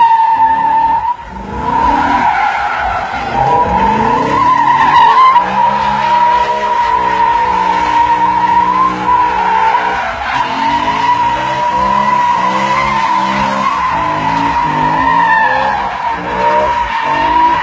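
BMW M3 spinning doughnuts: tyres squealing in a steady high screech, with the engine revving up and down under it. The noise drops briefly about a second in, then picks up again.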